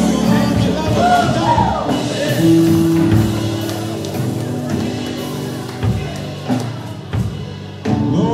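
Live church worship band, with keyboard and drums, playing while voices sing. The singing gives way to held keyboard chords, and the music gets gradually quieter, with a few knocks near the end.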